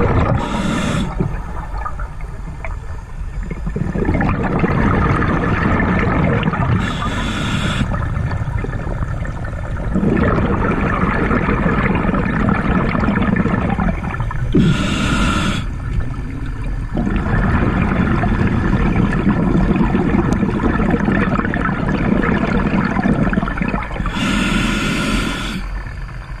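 Scuba regulator breathing underwater: four short hissing inhalations, each followed by several seconds of bubbling, gurgling exhalation.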